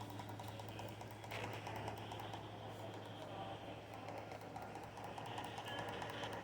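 Computer keyboard keys clicking in quick, irregular typing, over a steady low electrical hum.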